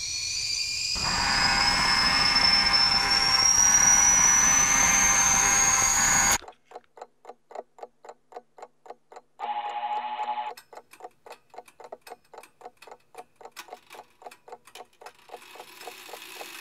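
A rising high whine over a rushing noise that cuts off suddenly about six seconds in, followed by steady clock-like ticking, about four ticks a second, with a brief ringing tone partway through.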